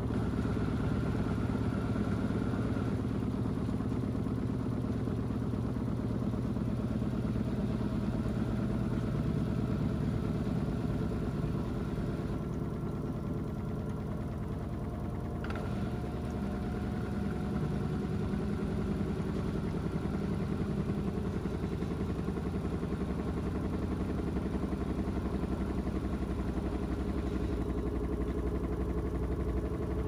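LG DirectDrive front-loading washing machine turning its drum, loaded with a heavy, water-soaked carpet: a steady mechanical hum with faint motor whine that drifts slowly in pitch.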